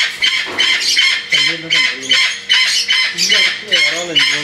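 Parrot squawking over and over, harsh calls about three a second.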